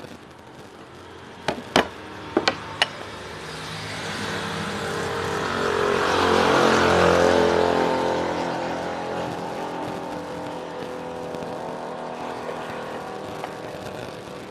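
A few sharp knocks about two seconds in, as the end cover is worked onto the motor housing. Then a motor vehicle's engine passes by, swelling to its loudest about seven seconds in and fading slowly.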